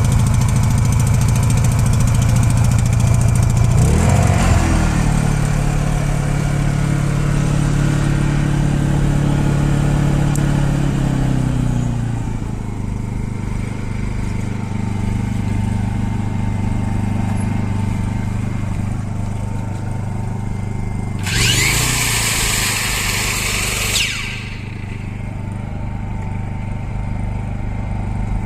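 Honda EU16i inverter generator's single-cylinder four-stroke engine running steadily. About four seconds in its speed steps up and holds, then settles back to a lower speed around twelve seconds. Near the end a higher whirring noise runs for about two and a half seconds while the engine briefly picks up.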